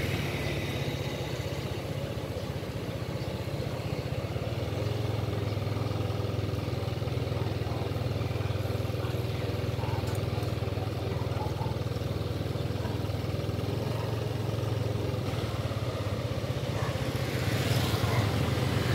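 A motorbike engine runs steadily with a low, even hum, and street traffic noise swells near the end.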